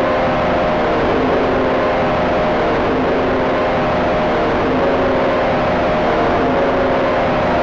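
Industrial machinery sound effect: a steady, dense rumble of machine noise with several constant humming tones running through it, holding an even level throughout.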